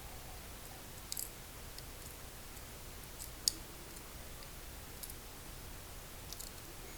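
Small metal clicks and taps of tweezers and lock pins being handled while loading pins into an American Lock 1106 padlock cylinder: a few scattered clicks, the sharpest about halfway through.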